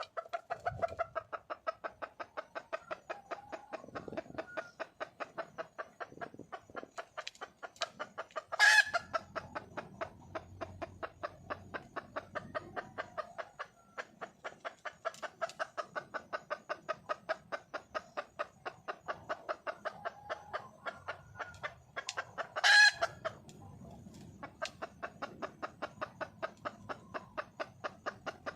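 Wild junglefowl hen calling for a male: a steady run of rapid clucks, about three to four a second, broken twice by a much louder, sharper call.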